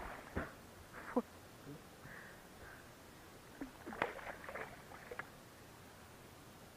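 A few sharp knocks and clicks, with a quick cluster of them about four to five seconds in.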